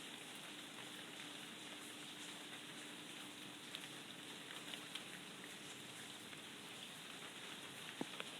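Steady rain falling in a garden, with scattered drops ticking on nearby surfaces and one sharper drip about 8 seconds in.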